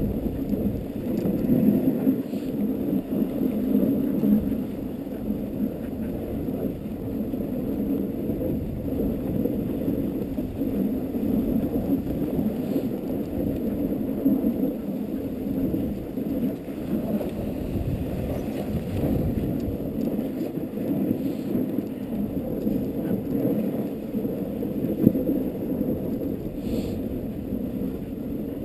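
Dogsled moving along a packed snow trail behind a husky team: the steady, low rushing and scraping of the sled over the snow.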